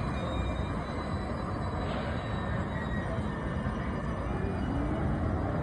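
Union Pacific passenger train backing slowly past, a steady low rumble without distinct clanks or horn.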